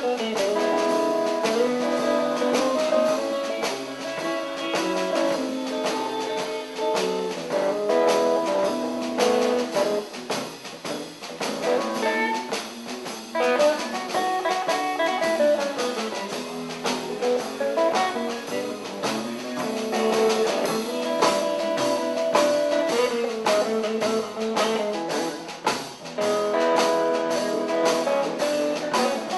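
Live blues played on electric guitar over a band with a steady beat, instrumental with no singing.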